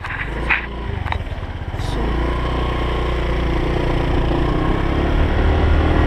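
Motorbike engine running, rising in pitch about two seconds in as it picks up speed, then running steadily.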